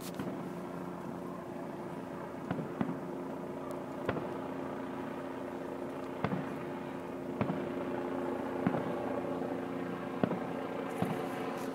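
Fireworks going off, sharp booms and cracks of shell bursts coming irregularly, about nine in all, over a steady low hum.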